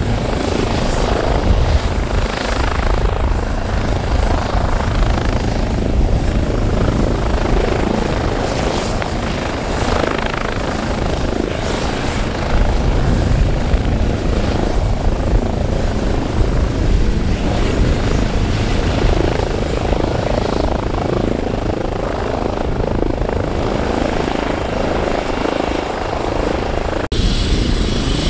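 Airbus H135 Juno twin-turbine helicopter running close by, a steady rotor and turbine noise. It cuts off abruptly about a second before the end and resumes slightly changed.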